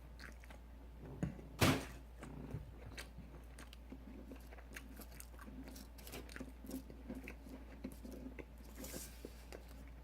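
A person chewing a mouthful of breaded chicken tender close to the microphone: soft, irregular wet clicks and light crunches, with one sharper, louder crunch about a second and a half in.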